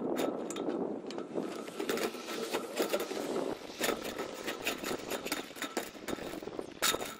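Flexible corrugated metal chimney liner crinkling and rattling as it is fed down into a brick chimney flue, a dense run of irregular metallic clicks and scrapes, with a louder clatter near the end.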